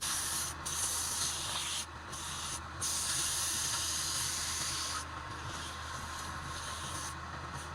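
Wood lathe running with a low motor hum while the spinning wood is worked, giving a loud, steady hiss. The hiss drops out briefly three times in the first three seconds as the contact is lifted.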